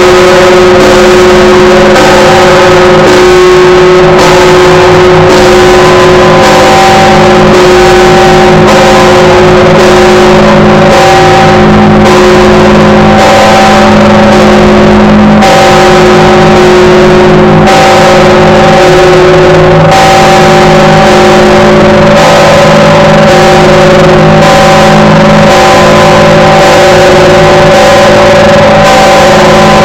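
The Lavra's 7,150 kg All Saints bell, a large church bell, rung with strokes about once a second, its deep hum sounding on continuously between them. Very loud.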